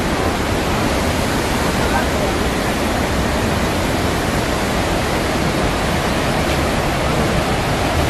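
Steady, even rush of the Great Falls of the Passaic River, a broad river waterfall.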